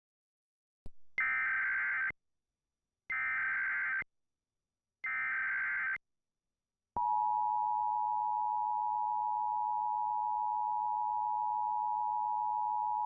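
Emergency Alert System signal: three short screeching bursts of SAME digital header data, about a second apart, then about seven seconds in the steady two-tone EAS attention signal starts and holds. The header bursts encode the alert, and the attention tone announces the alert message that follows.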